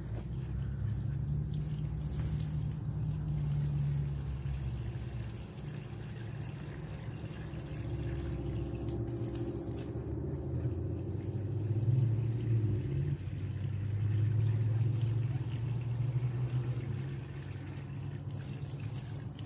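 Deep exhaust rumble of a vehicle with loud mufflers, rising and falling, with water pouring from a plastic watering can into a planter bucket.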